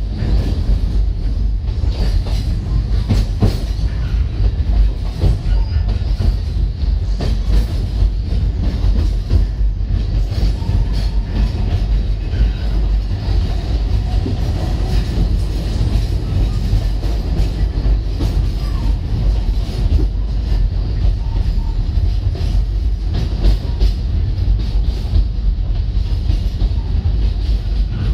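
Alishan Forest Railway train running along its narrow-gauge track, heard from inside the passenger carriage: a steady low rumble with irregular clicks and knocks from the wheels over the rails.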